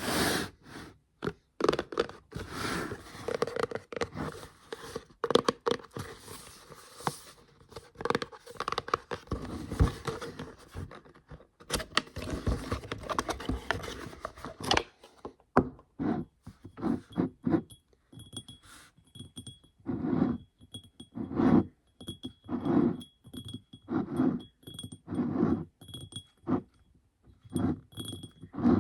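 Unboxing handling close to the microphone: about fifteen seconds of continuous crinkling and rustling of packaging. Then come separate soft taps and scrapes of items being handled, with faint high jingling tones that recur.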